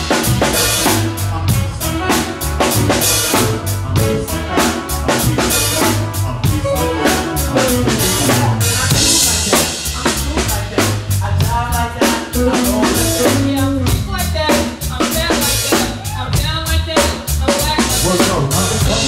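Live band playing a groove driven by a drum kit, with steady kick and snare strokes and cymbal crashes, plus electric bass and singers' voices over it.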